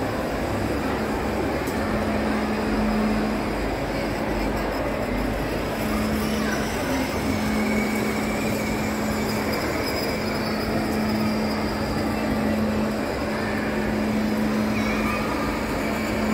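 Steady background hubbub of a busy shopping-mall hall: indistinct crowd chatter over a constant din, with a steady low hum.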